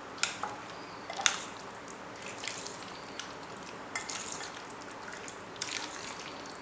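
Boneless chicken being stirred in a thick yogurt and spice marinade: wet squelching and squishing, with a few sharp clicks against the bowl.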